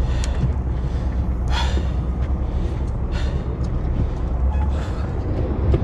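Steady low drone of a sportfishing boat's engines running, with faint shouts from anglers on deck a few times.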